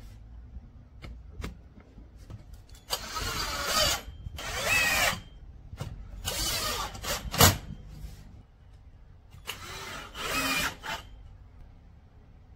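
Cordless drill-driver driving screws through a table pedestal's mounting plate into the table top, in four short runs of about a second each. There is one sharp knock a little past the middle.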